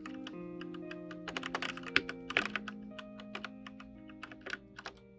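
Typing on a Redragon Lakshmi mechanical keyboard: irregular key clicks, a quick flurry in the middle, over background music with held notes that slowly fades.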